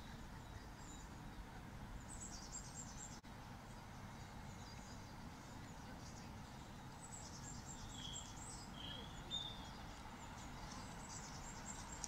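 Small songbirds chirping and trilling in scattered bursts, with a few clearer whistled notes just after the middle, over a faint steady low rumble.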